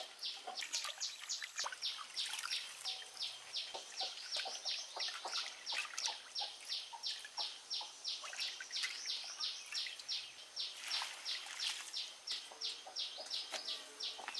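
Steady, evenly repeated high chirping from a bird or insect, about three short pulses a second, with faint splashes and knocks as leaves are handled in a basin of water.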